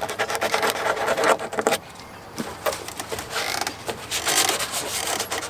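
Wad of paper tissue rubbed briskly over a plastic water jerry can, drying it around a leak. Scratchy rubbing comes in two spells with a pause in the middle.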